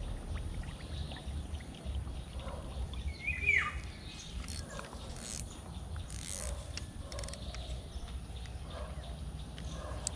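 Outdoor riverbank ambience with a steady low rumble; about three and a half seconds in a bird gives one short call that falls in pitch, followed by a few short high chirps.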